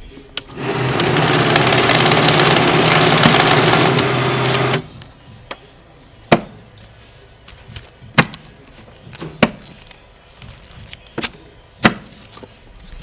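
Glory banknote counting machine whirring as it riffles a stack of bills for about four seconds, then stopping abruptly. Five or six sharp clicks or taps follow over the next several seconds.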